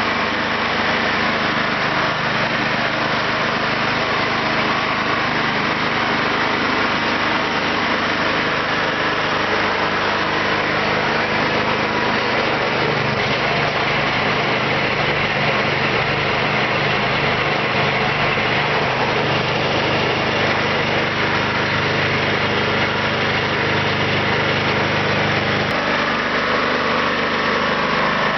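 Kentavr 7807 snowblower's petrol engine running steadily after its carburettor was cleaned, showing the no-start fault is cured. About halfway through, a lower hum in the running grows stronger, then drops back again near the end.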